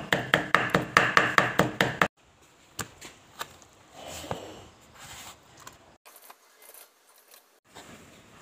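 Kitchen knife chopping soaked dried red chillies on a wooden chopping board: a quick run of sharp strokes, about five a second, for the first two seconds, then it stops suddenly and only faint scattered knocks follow.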